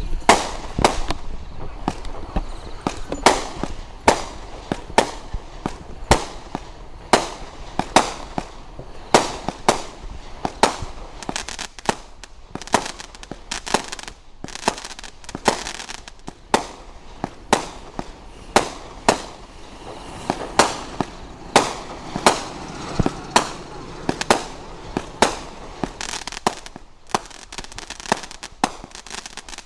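A 200-gram consumer firework cake firing its 35 shots in quick succession: a steady run of sharp reports, about one or two a second, as the shells launch and burst, with a crackling hiss between them.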